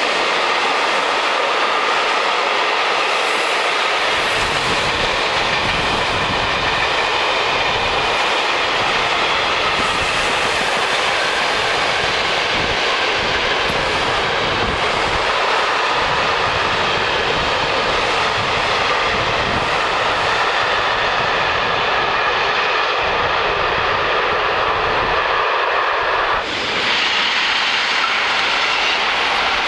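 Freight train of covered steel-coil wagons and flat wagons rolling past: a steady rush of wheels on rails. About 26 seconds in, the sound changes abruptly to a brighter rush as a train of SBB passenger coaches passes.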